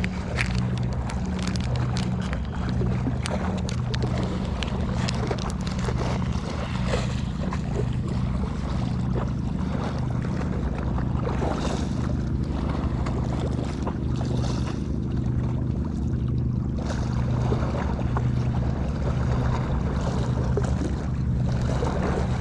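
Boat engine running steadily, a low drone that throbs about once a second, under wind and sea noise with scattered small clicks.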